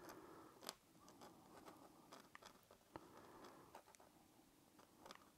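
Faint scratching of a dip-pen nib on sketchbook paper, with a few light ticks as the nib touches down in short strokes.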